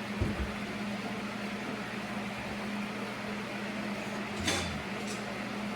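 Steady machine hum in a shop, with a short low knock about a quarter second in and a sharp click about four and a half seconds in.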